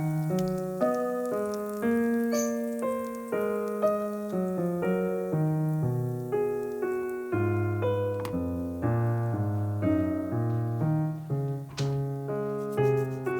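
Background piano music: a steady run of single notes and chords, each struck and fading.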